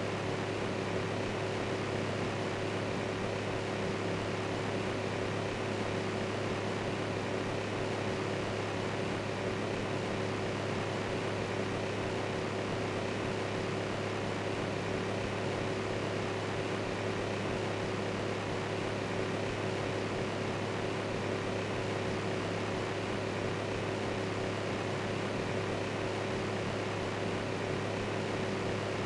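Electric fan running steadily: an even whir with a low hum underneath.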